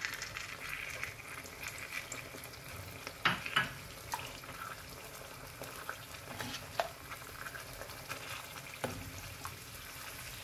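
Chicken in a tomato masala sizzling in a stone-coated pan while yogurt is stirred in with a metal spoon. The spoon knocks against the pan several times, loudest twice about three seconds in.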